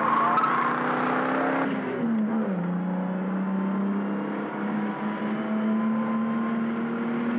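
Racing car engine running hard, its note dropping about two seconds in and then holding steady.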